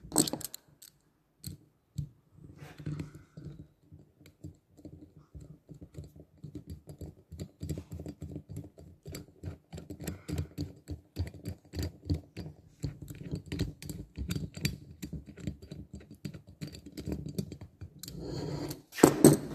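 Screwdriver turning the Torx screws that hold the cylinder of a Stihl MS 150 TC chainsaw engine, a quick run of small metallic clicks and scrapes as the screws go in. There is a sharp knock at the start and a louder clatter of handling near the end.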